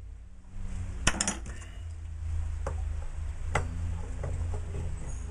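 Scattered sharp metallic clinks of a steel mountain bike disc brake rotor, its mounting bolts and a T-handle hex key knocking together as the rotor is bolted onto a hub. The loudest clink comes about a second in.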